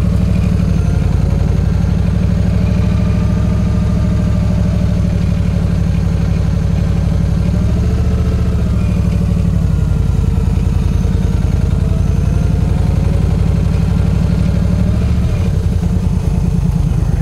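Yamaha V Star 1300's V-twin engine running at low speed as the motorcycle rolls slowly along, its note shifting about halfway through and again near the end.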